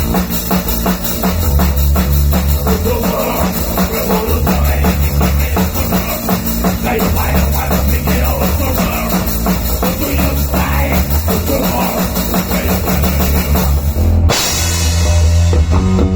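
Electric bass and drum kit playing a fast heavy metal part, the drums hitting densely under low bass notes. About fourteen seconds in, the drums and cymbals stop suddenly and the bass carries on alone.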